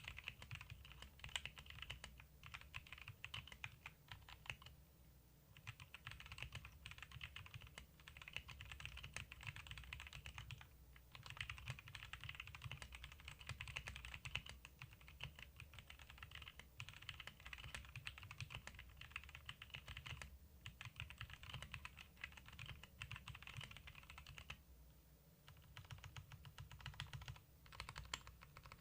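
Typing on a Gibkey G68 65% mechanical keyboard with Jixian Brown tactile switches and PBT keycaps: a faint, rapid patter of keystrokes in runs, broken by a few brief pauses.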